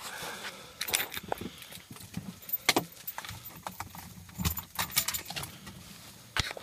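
A bunch of keys jangling, with a string of irregular sharp metallic clicks.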